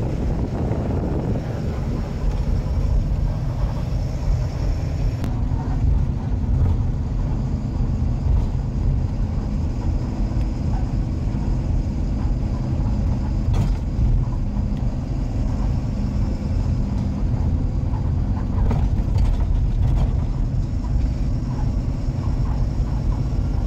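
A truck on the move heard from inside its cab: a steady low engine drone with road and wind noise, and a couple of brief knocks partway through.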